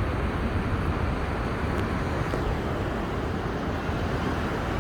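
Big ocean waves breaking on a beach, a steady rushing wash of surf with a low rumble.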